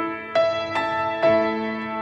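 Background music: a slow, gentle melody of struck notes, a new note about every half second.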